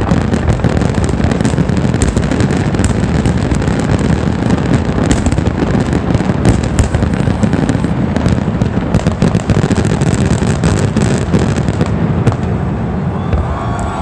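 Fireworks finale barrage: dense, overlapping booms merge into a continuous rumble, with sharp cracks and crackle throughout. It dies down near the end.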